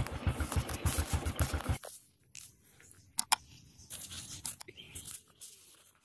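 Honda Supra X 125 R's single-cylinder four-stroke engine idling with an even, rapid pulse, which cuts off abruptly a little under two seconds in. A few faint clicks follow.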